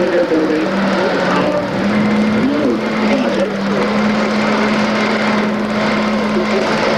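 Caterpillar 983 track loader's diesel engine running with a steady hum that shifts slightly in pitch a few times.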